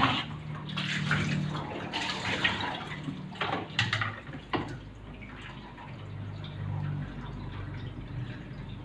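Water running and splashing during a dog's bath, with a few sharp knocks in the first half; after about four and a half seconds it settles to a quieter low hum.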